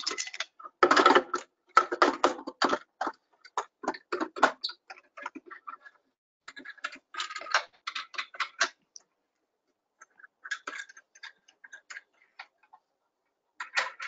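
Irregular clicks and knocks as the GLOBETrekker terminal's legs are hooked into the frame's slots over the alignment pins and locked with turn knobs. They come in clusters with short pauses.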